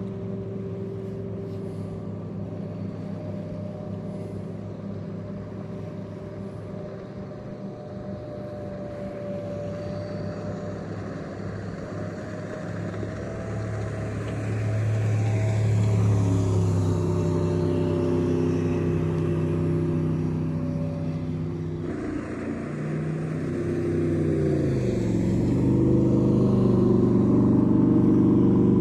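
Jet boats passing along the river one after another, their engines running with a pitch that rises and falls as each goes by. The engine sound grows louder through the second half, with a dip and rise in pitch near the end as a boat passes close.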